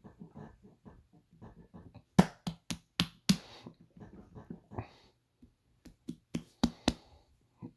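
Stomach growling and sloshing as a stream of short, soft gurgling pulses. Two quick runs of five sharp clicks, about two seconds in and about six seconds in, are the loudest sounds.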